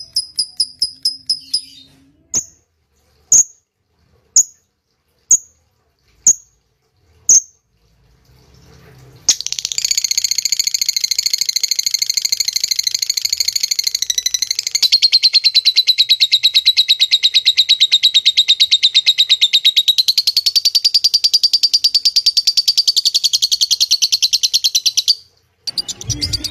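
Lovebird ngekek, its fast chattering trill. One trill fades out about two seconds in. Six single sharp chirps follow, about a second apart. Then, starting near nine seconds in, comes a long, loud, unbroken trill of about sixteen seconds.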